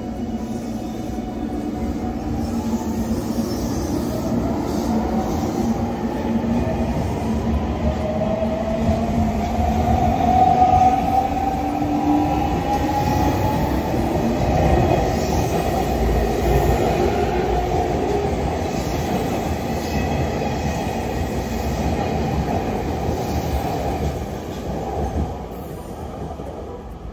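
Electric train on the move: a deep rumble of wheels on rail with the motor whine rising in pitch as it gathers speed, then fading away near the end.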